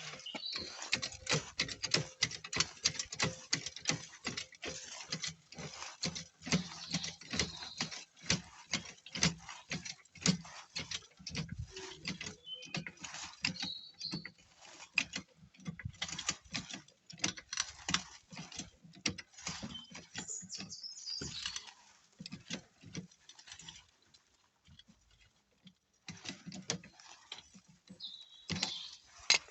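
Metal hand tools clicking and clinking in quick, irregular strokes, with a pause of a few seconds about three quarters of the way through.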